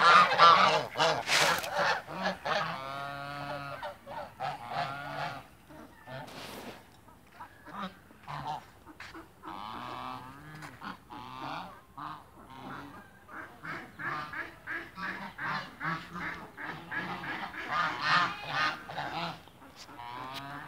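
Farmyard fowl calling over and over, loudest at the start and again near the end.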